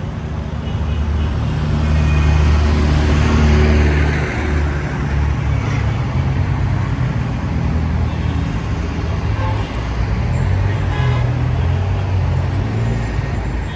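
Road traffic passing close by: car engines and tyre noise, with one vehicle going past loudly a few seconds in, then a steady flow of traffic.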